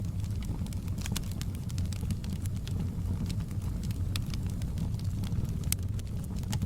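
Wood fire burning in a fireplace: a steady low rumble of flames with frequent small, irregular crackles and pops from the burning logs.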